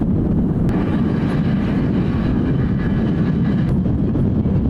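Su-30SM fighter's twin turbofan jet engines, a steady low rumble as the jet flies past, with a higher hiss joining in from just under a second in for about three seconds.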